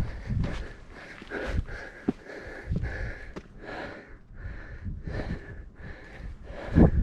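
Hiker breathing hard and fast in rhythmic puffs, about one and a half breaths a second, winded from a steep climb at elevation.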